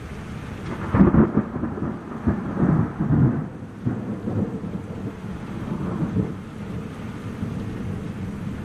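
Thunder: a sudden loud clap about a second in that rolls on in lower rumbles for several seconds and fades, over the steady hiss of heavy rain.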